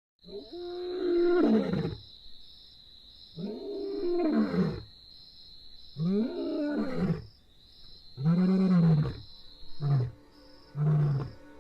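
Lion roaring: four long, moaning roars that rise and fall in pitch, then a run of short grunts about once a second near the end, the usual close of a lion's roaring bout. A thin steady high tone runs behind.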